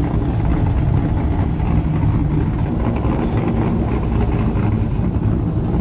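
Steady low rumble of an idling vehicle engine.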